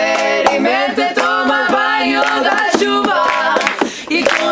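Women's voices singing a song together, with sharp hand claps roughly every half second.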